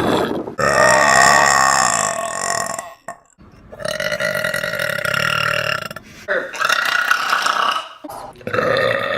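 A woman belching: a run of long, drawn-out burps, about four in a row with short breaks between them, the longest lasting two to three seconds.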